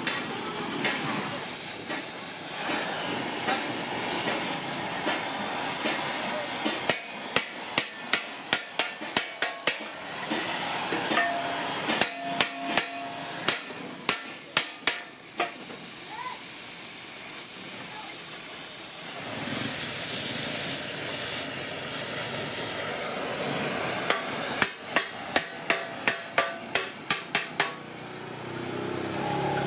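Gas torch hissing steadily while a seam on an aluminium pot is brazed with filler rod. Three runs of quick sharp taps, about three a second, break in about a quarter of the way in, near the middle and near the end.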